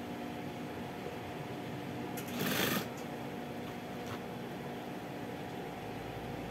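Sewing machine motor humming steadily, with one short, loud run of stitching a little over two seconds in.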